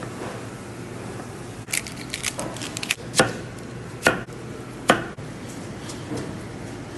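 Kitchen knife chopping on a plastic cutting board. A quick run of light taps is followed by three sharp chops about a second apart.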